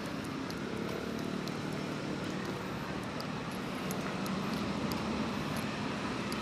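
Steady road traffic noise from cars running along a city street, a continuous low engine hum.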